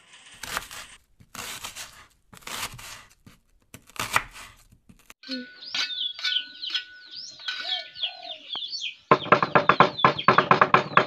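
A large knife slicing a red onion on a wooden chopping board, four or five strokes about a second apart. Birds chirp in quick calls after that. About nine seconds in, music with a fast percussive beat starts and is the loudest sound.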